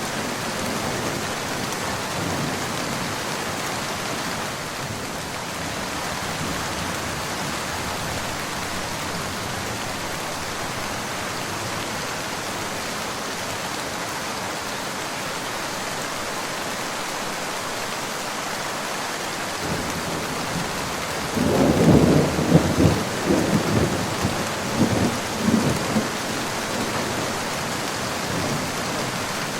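Steady rain falling, with a roll of thunder swelling in from about two-thirds of the way through, rumbling and crackling for several seconds before fading back into the rain.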